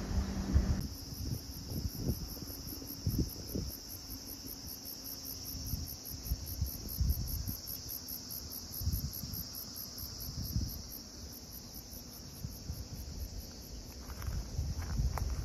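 Summer insects calling outdoors: a steady high chirring throughout, and over it a second, higher insect pulsing at about five beats a second until about eleven seconds in. Intermittent low rumbles underneath.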